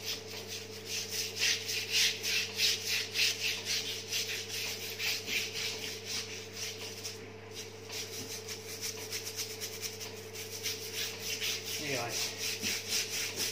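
Stiff-bristled plastic scrubbing brush scrubbed back and forth over the greasy cast-iron base of a milling machine, a scratchy swish on each quick stroke, with a short pause about halfway. A steady low hum runs underneath.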